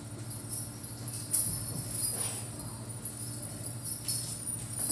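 Horse tack being handled at the saddle and girth: light metallic jingling and clinking of buckles, with a few sharp knocks and a steady low hum behind.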